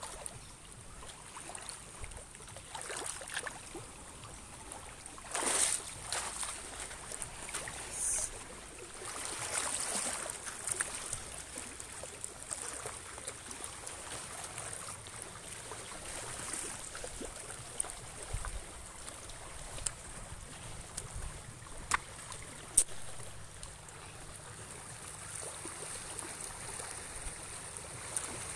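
Small sea waves lapping and washing around rocks in shallow water at the shore, with a louder wash about five seconds in. Two sharp clicks sound close together about three-quarters of the way through.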